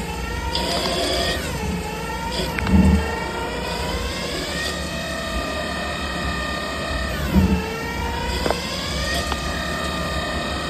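CNC lathe grooving steel with a 5 mm Kyocera grooving insert. The spindle drive whines and its pitch falls and rises again several times, with two short heavy thumps, about 3 seconds and 7.5 seconds in.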